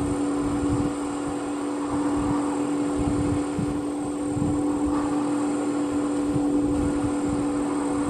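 Vehicle engine idling steadily, a constant low hum, with irregular low rumbles underneath.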